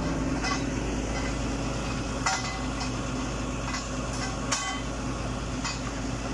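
Large forklift's engine idling steadily, with four short metallic clinks.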